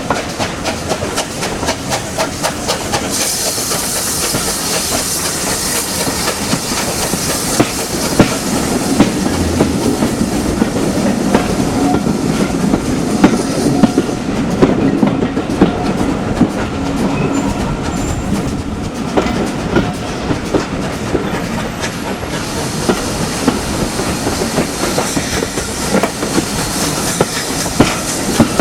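Heritage railway train running, its wheels clacking over the rail joints. A high hiss comes in a few seconds in, fades around the middle and returns near the end.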